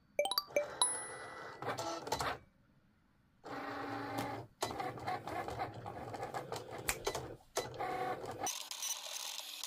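Cricut Explore Air 2 cutting machine cutting heat transfer vinyl. A quick string of sharp clicks comes first, then the carriage motors whir in runs broken by short pauses. Near the end the sound changes to a higher, hissier whir.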